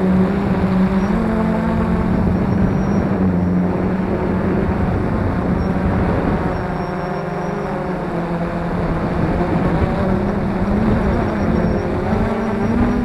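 F450 quadcopter's brushless motors and propellers humming in flight, the pitch stepping up and dipping slightly as the throttle changes.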